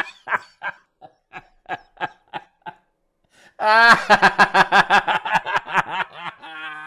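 A man laughing: quiet snickering pulses at first, then, about three and a half seconds in, a loud, rapid run of hearty laughter that trails off in a wavering wheeze near the end.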